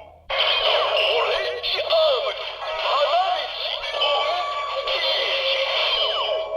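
Kamen Rider Neo Decadriver toy henshin belt playing its electronic transformation music and synthesized voice effects through its built-in speaker. The sound starts about a third of a second in and plays continuously, with no deep bass.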